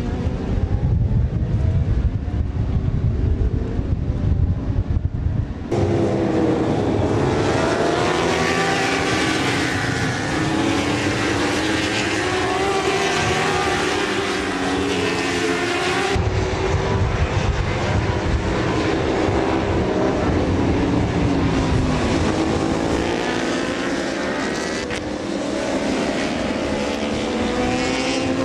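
Racing motorcycle engines at high revs, several at once, rising and falling in pitch through gear changes. Before that comes a low rumble with wind on the microphone, which cuts off sharply about six seconds in.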